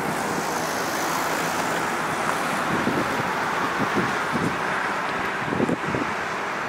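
Steady rushing outdoor road noise, with a few soft low thumps between about three and six seconds in.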